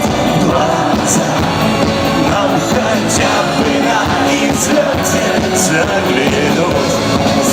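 Loud rock music from a band, with drums and cymbals keeping a steady beat.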